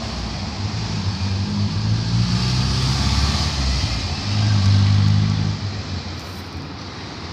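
Cars driving past on a street, engines and tyre noise, with the loudest car going by about four to five and a half seconds in, then fading.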